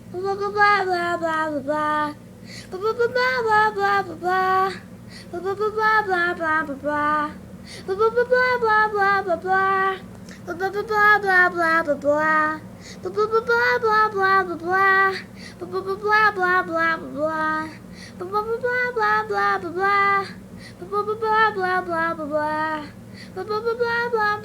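A high, child-like voice sings the same short phrase over and over, rising and falling, with a new repeat about every two seconds, over a steady low hum.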